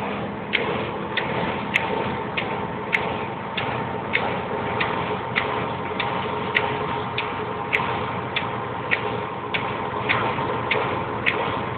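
Inside a moving car's cabin on a wet road: steady engine and road noise, with a sharp, regular tick about every 0.6 seconds.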